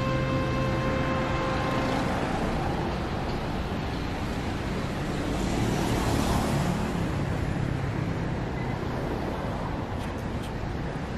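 Road traffic noise from passing cars, a steady wash of sound that swells louder about six seconds in as a vehicle goes by.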